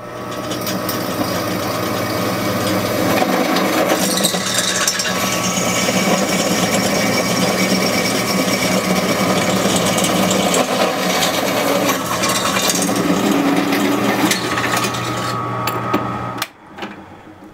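Drill press running with a steady motor hum while its twist bit bores through 1-inch square steel tubing, the scraping of the cut over the hum. It stops abruptly about a second before the end.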